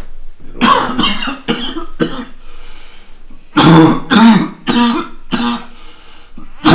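A person coughing and hacking in short, loud bursts: a run of four coughs about half a second in, four more in the middle, and another starting at the very end.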